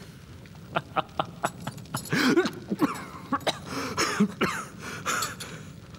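A wounded man laughing in short, breathy bursts, with mouth clicks between them.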